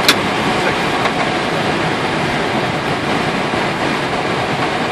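Steady rushing noise inside an Airbus airliner's cockpit as it rolls out after landing, the engines at idle, with one sharp click just after the start.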